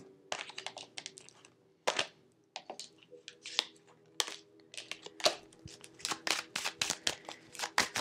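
Tarot cards being handled over a table: a stack shuffled and cards flicked out and dropped onto the spread, making a run of quick, light card snaps and slaps that grows denser in the second half.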